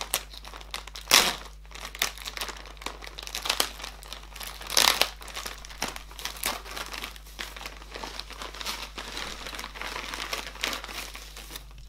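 Yellow plastic shipping mailer being torn open and crinkled by hand: crackly rustling throughout, with louder rips about a second in and again about five seconds in.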